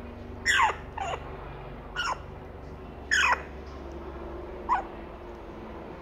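Five short, sharp animal calls spread over about four seconds, each sliding steeply down in pitch; the first and fourth are the loudest.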